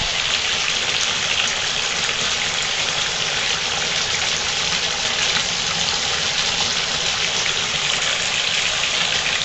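Bathtub tap running steadily, water gushing into a partly filled tub.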